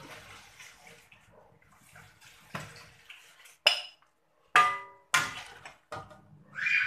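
Metal ladle dipping into soup in an aluminium wok and pouring it into a glass bowl: liquid splashing and pouring, broken by sharp ringing clinks of the ladle knocking against the wok and bowl, the loudest three in the second half.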